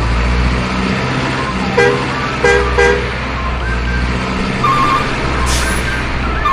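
Truck engine sound running with a steady low drone, three short horn toots about two seconds in, and a brief hiss of air near the end.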